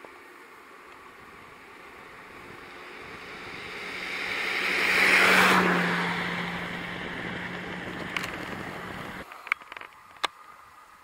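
A motor vehicle passing by, its noise swelling to a peak about five seconds in and then fading away. The sound cuts off abruptly near nine seconds, followed by a few sharp clicks.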